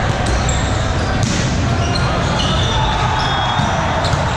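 Din of a multi-court indoor volleyball hall: volleyballs being struck and bouncing, sneakers squeaking on the court floor, and many voices, all echoing in the large hall. A sharper hit stands out about a second in.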